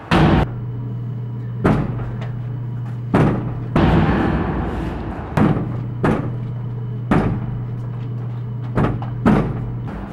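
A heavy slam as a door is kicked, the loudest sound, right at the start. A steady low hum follows, with a string of further thuds and hits every second or so.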